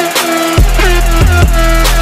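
Electronic background music with a drum kit beat, a heavy bass line and synth notes.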